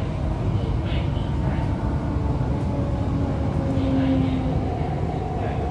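MTR East Rail Line R-Train heard from inside the car as it runs into a station platform: a steady low rumble from wheels and running gear, with electric traction-motor tones that shift in pitch as the train slows to stop.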